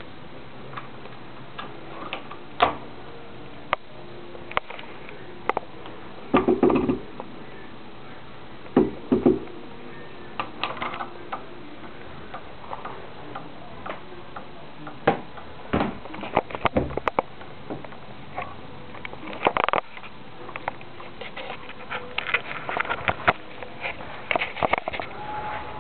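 Key rattling and clicking in a door lock, with the keyring jangling against the door: irregular sharp clicks and short metallic rattles throughout, with the longest rattles a few times along the way.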